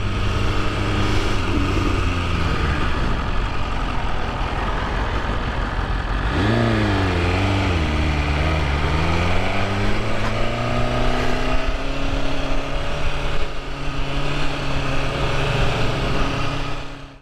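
BMW S1000RR's inline-four engine running under way, with wind noise over it. About six seconds in, the engine note jumps up, sags, then climbs steadily for several seconds as the bike pulls away.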